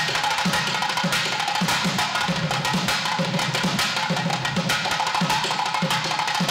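South Indian temple melam drums playing a fast, dense rhythm: deep drum beats a few times a second under a steady stream of sharp stick and hand strokes.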